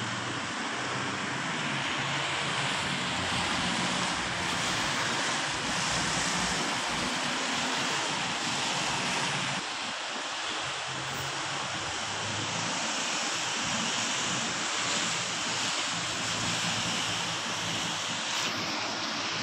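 Steady road traffic: cars driving past, a hiss of tyres on the road over a low engine hum. The mix shifts about ten seconds in and again near the end.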